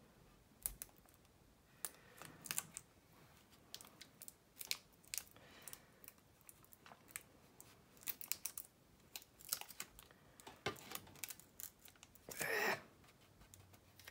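Faint handling sounds of masking tape being pressed and smoothed onto a plastic model aircraft's nose: scattered light clicks, taps and crinkles, with a brief louder rustle a little past twelve seconds in.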